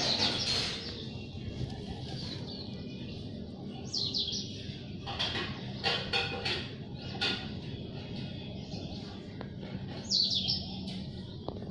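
Birds chirping in short clusters of high notes, some sweeping quickly downward, near the start, around four seconds, from about five to seven seconds, and around ten seconds in, over a steady low background rumble.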